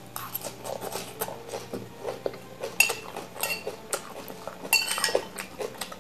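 A metal spoon scraping and clinking against a ceramic salad bowl as leafy greens are scooped up, in a run of irregular small clicks. The sharpest ringing clinks come about three seconds in and again near five seconds.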